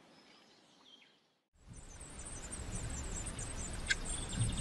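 Eurasian blue tit nestlings begging: a chorus of thin, high-pitched chirps that starts about a second and a half in, after a brief silence, as an adult comes to the nest. A short click comes shortly before the end and a low thump near the end.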